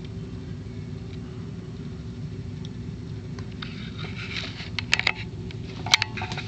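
Steady low hum, with light rustling starting about halfway through and two sharp knocks about a second apart near the end.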